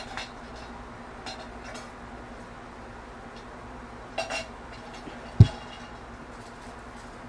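Ice clinking in a large handled tumbler of iced water as it is lifted and drunk from through a straw, with a few short clinks. Then a single thud about five seconds in as the tumbler is set back down on the table.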